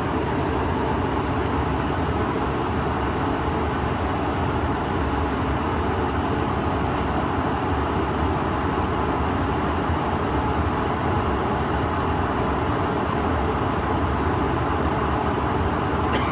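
Steady cabin noise of a Bombardier CRJ-700 jet in flight: the hum of its two rear-mounted General Electric CF34 turbofans mixed with rushing airflow, heard from a forward seat.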